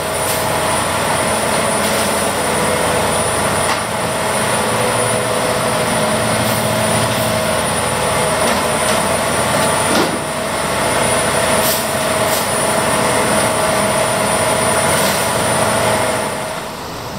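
Steady din of a fishing boat's engine and machinery, with a constant high whine and scattered sharp knocks as fish crates are handled in the hold; it drops in level near the end.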